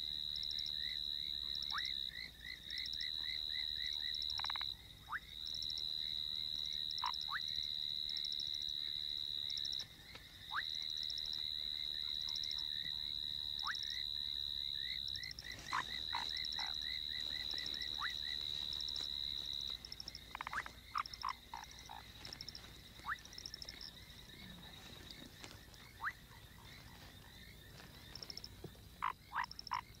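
Night chorus of many frogs calling at a breeding pond. A loud, high, continuous trill runs in long stretches with short breaks and stops about two-thirds of the way through. Under it are rapid pulsed calls and scattered short, sharp plinking calls, which crowd together near the end.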